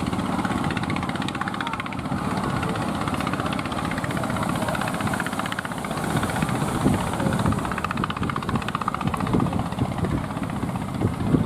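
An engine running steadily with a fast, even pulse, over a rushing noise that grows rougher and more uneven in the second half.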